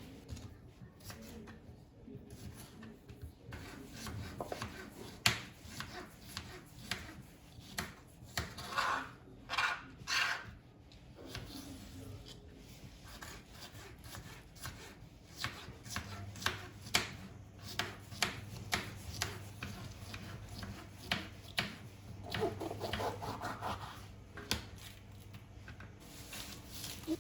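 Irregular light knocks, taps and rubbing of objects being handled, with longer swishing scrapes about nine and ten seconds in and again near the end. A low steady hum comes in about halfway through.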